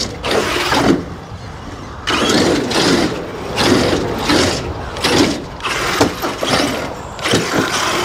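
ARRMA 8S brushless RC truck driven in throttle bursts around the inside of a concrete pipe, its motor whine and tyre noise surging and falling every second or so.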